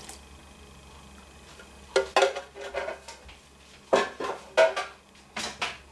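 Kitchenware clattering: a metal spoon and a plastic jug are handled and set down around a plastic mixing bowl. Several separate knocks and clinks start about two seconds in.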